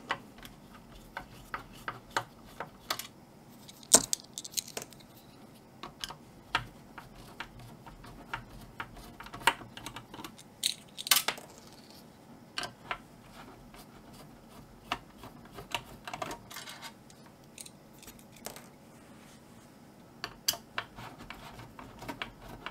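Phillips screwdriver backing out the drive-mounting screws from the steel base of a network video recorder: scattered small metallic clicks and taps of the screwdriver and the loose screws, the sharpest about four seconds in.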